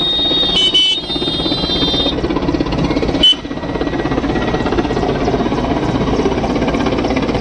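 Indian Air Force helicopter flying overhead, its rotor beating in a steady, fast chop. A high steady tone sounds over it for the first two seconds, and the sound breaks off sharply about a second in and again after three seconds.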